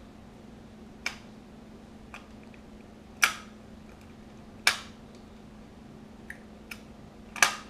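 Sougayilang AFL 10000 spinning reel being handled: a string of sharp mechanical clicks and snaps at irregular intervals, three of them much louder than the rest.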